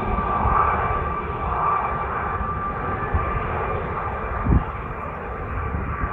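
Fixed-wing aircraft engine droning as it flies its display, a steady noisy sound with a steady high whine over a low rumble. A brief low thump comes about four and a half seconds in.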